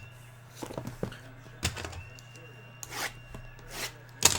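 Sports-card box and packs being handled on a table: scattered light knocks, taps and rustles, about six over a few seconds, over a steady low electrical hum.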